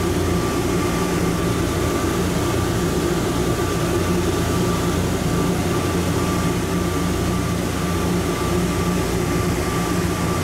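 Rubber-tyred automated people mover train running at speed through a concrete tunnel, heard from inside the car: a steady rumble of running gear with a constant low hum and a thin steady high whine.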